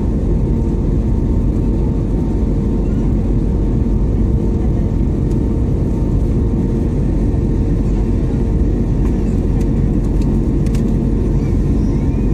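Steady cabin noise of an Airbus A321neo in flight, heard from a window seat beside the wing: the low roar of the jet engines and airflow, with a steady hum note running through it.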